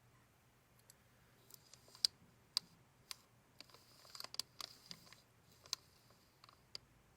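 Faint handling of a handmade paper binder file: a string of sharp light clicks with short papery rustles between them, busiest in the middle.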